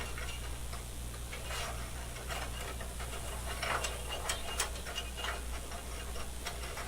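Scattered small metal clicks and taps from hand work on a tabletop band saw's table, as the wing nut, wing screw and D nut are worked out of the blade slot. A steady low hum runs underneath.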